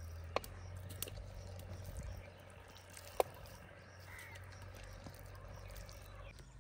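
A few light knocks as pieces of raw beef are dropped into the cooking pot, with a crow cawing in the background.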